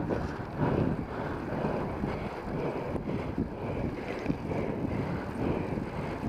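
Wind buffeting the microphone of a camera mounted on a riding road cyclist, a gusty rushing noise that rises and falls.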